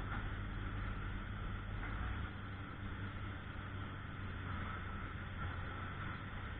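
Diesel engine of heavy work equipment running steadily, with a deep rumble that drops away about two seconds in.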